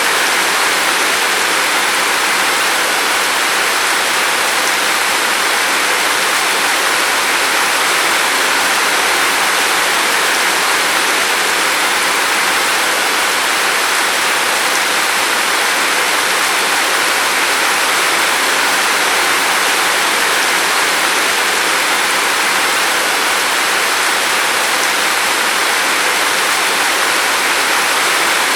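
Steady rain falling, an even, unbroken hiss with no single drops or gusts standing out.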